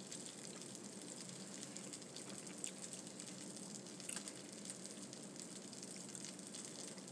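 Faint steady hiss and low hum, with a few small soft clicks about a third of the way in, past the middle and near the end.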